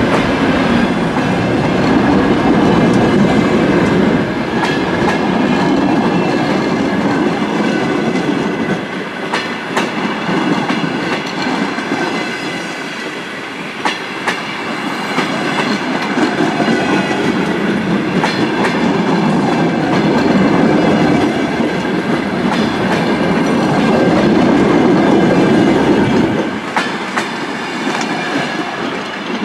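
Unpowered DR1A diesel-train trailer cars rolling past on their bogies, with the wheels clicking over rail joints in an irregular clickety-clack.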